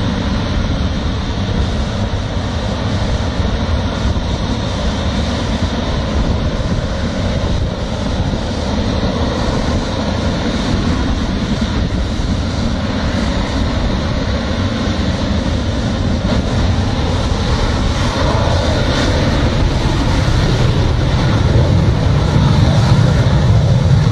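Chengdu F-7 fighter jet's turbojet engine running on the runway: a steady, loud jet noise heavy in the low end, growing louder over the last few seconds.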